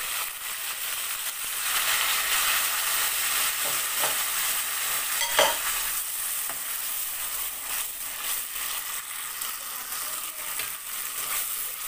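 Tomato and onion paste sizzling steadily after being poured into hot oil with browned ginger and garlic in a steel karahi. One sharp knock sounds about halfway through.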